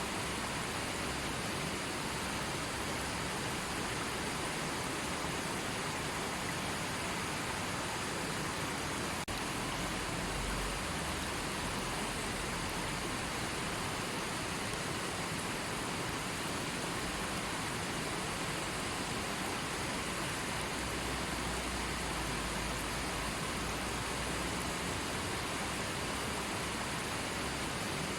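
River water flowing, a steady even rush, with brief low rumbles about ten seconds in and again past the twenty-second mark.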